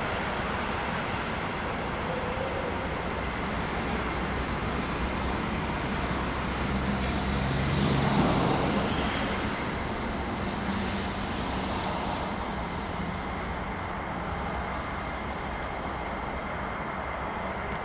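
Steady road traffic noise, with a vehicle passing louder about eight seconds in before it eases back.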